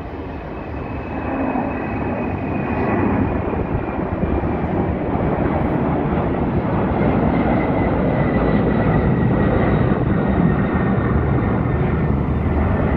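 Boeing 767-300F freighter's twin GE CF6-80C2 turbofans at takeoff thrust during climb-out: a broad jet roar that grows louder over the first few seconds and then holds steady. A faint high whine in it slowly falls in pitch.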